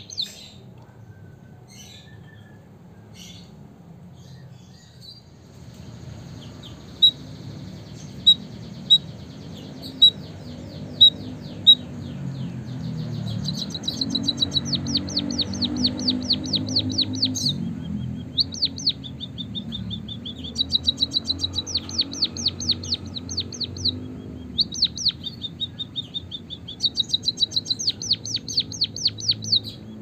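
White-headed munia singing: a few soft clicks, then a string of single sharp notes about a second apart, then long fast rolling trills that come in repeated bursts. A steady low rumble sits underneath.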